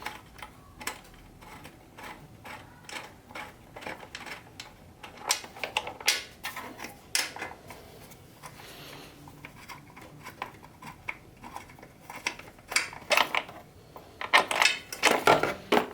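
Allen key fitted into and turning the two screws on a portable electric planer, with irregular metal-on-metal clicks and clinks, in louder clusters about midway and near the end.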